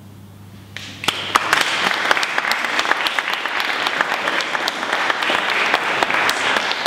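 An audience clapping, breaking out about a second in after a short hush.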